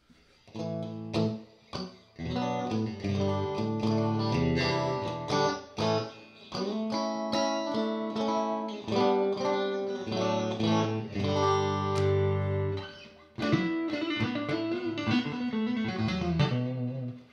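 Clean electric guitar: a Fender Stratocaster played straight through a 1968 Fender Super Reverb tube amplifier with no pedals, picking chords and single notes. There is a short break about 13 seconds in, and bent notes near the end.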